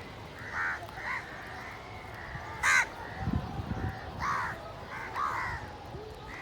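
Several crows cawing, short harsh calls coming one after another, the loudest a little under three seconds in.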